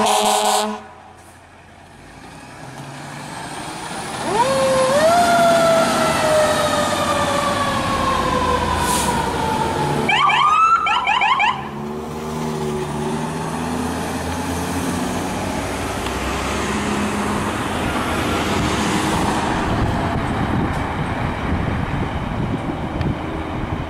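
Fire truck siren winding up about four seconds in, then falling slowly in pitch. A short burst of fast warbling siren follows about ten seconds in. After that come steady engine and road noise as the truck drives off.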